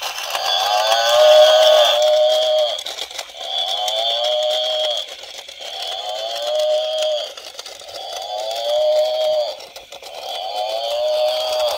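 Battery-operated toy buffalo walking, its built-in speaker playing a recorded mooing call over and over, about every two seconds, with the clicking of its walking gears underneath.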